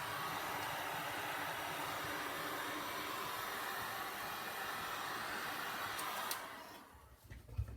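Heat gun blowing steadily over a wet epoxy resin coat to bring up and pop bubbles, shut off about six and a half seconds in. A couple of light knocks follow near the end.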